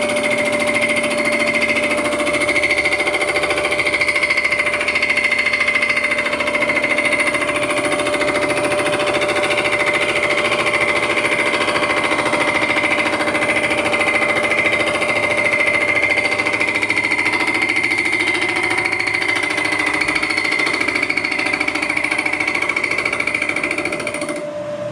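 Vertical knee milling machine decking the cast-iron deck of a 1927 Chevrolet engine block with a spindle-mounted cutter: a steady machining whine with cutting noise under it. The deck is warped like a taco, so the pass cleans up only its ends. Near the end the cutting noise and the higher whine stop as the cut finishes, while the spindle keeps running.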